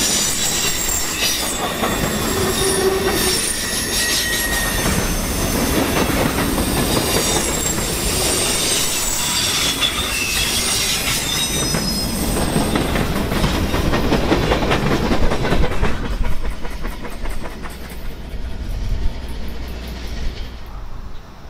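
Freight train of boxcars and tank cars rolling past on a curve, wheel flanges squealing in thin high tones over the steady rumble and clack of the wheels. The squeal and rolling noise thin out about 15 seconds in as the last cars go by, leaving a low rumble that fades near the end.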